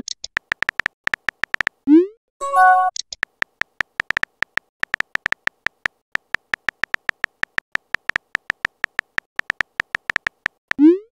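Rapid, uneven keyboard-typing clicks from a texting-story app's typing sound effect, several taps a second. About two seconds in, a short rising swoop and a brief chime mark a message appearing. Another rising swoop comes near the end.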